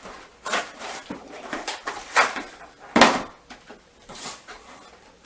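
Handling of a cardboard toy box and its packaged contents as they are pulled out: irregular rustles, scrapes and knocks, with the loudest knock about three seconds in.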